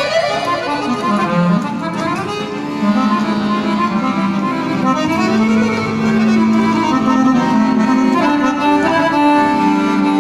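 Piano accordion playing solo, a melody with quick runs of notes sweeping up and down over held low bass notes.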